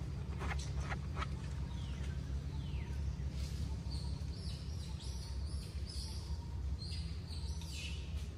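A run of short, high-pitched squeaky calls in the second half, over a steady low rumble, with a few soft clicks near the start.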